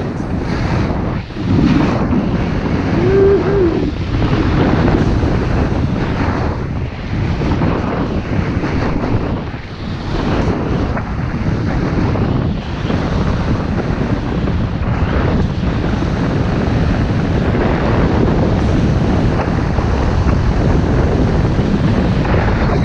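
Wind buffeting an action camera's microphone during a fast descent down a snowy slope, mixed with the hiss of the rider sliding over snow. The noise swells and dips briefly every few seconds as the turns change.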